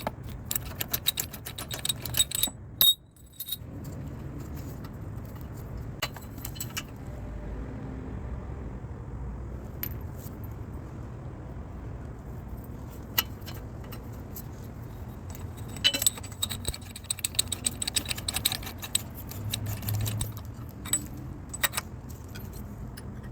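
Metal hand tools clinking and rattling against a small engine in bursts of quick small clicks, as a spark plug is being fitted. Under it runs a steady low hum.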